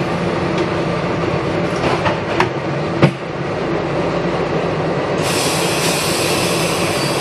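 SEPTA Broad Street Line subway car heard from inside as it pulls out of a station and gathers speed into the tunnel: a steady running rumble with motor hum and a couple of sharp clicks near the middle. About five seconds in, a brighter hissing noise joins and holds.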